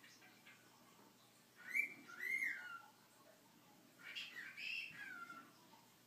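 Cockatiel whistling two short two-note phrases, each note rising and falling in pitch, about two seconds apart.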